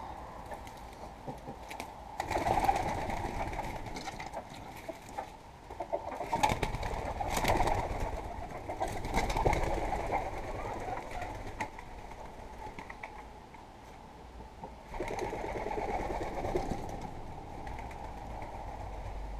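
Domestic pigeons cooing in several spells, with scattered clicks in between.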